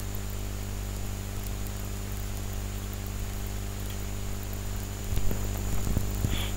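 Steady electrical mains hum and hiss picked up by the recording microphone, with a faint high whine above it. A few low knocks and bumps come about five seconds in.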